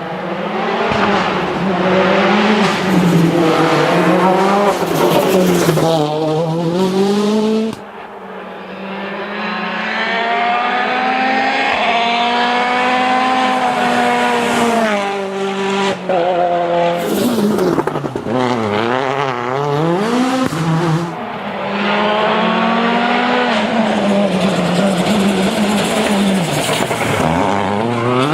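Citroën DS3 WRC rally car's turbocharged 1.6-litre four-cylinder engine revving hard, its pitch climbing and dropping again and again through gear changes and lifts, with a sudden drop in loudness about eight seconds in.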